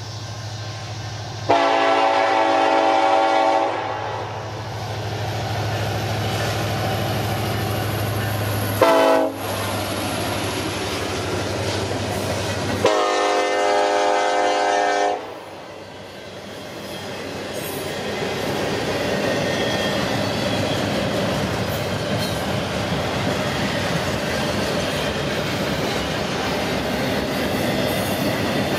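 Union Pacific EMD diesel locomotive sounding its horn as it passes close by: a long blast, a short one, then another long one, over the steady drone of its engine. After the last blast the engine fades and the steady rumble and clatter of double-stack intermodal well cars rolling past takes over.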